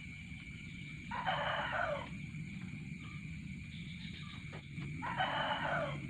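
A rooster crowing twice, about four seconds apart, each call just under a second long, over a steady high tone and a low rumble.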